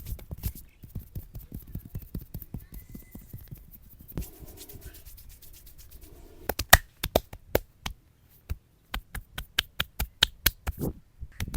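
Hand slaps, taps and sharp clicks on a man's head during a traditional head massage, coming in quick irregular runs. The strikes grow louder and more spaced out from about six seconds in, with a brief pause near eight seconds.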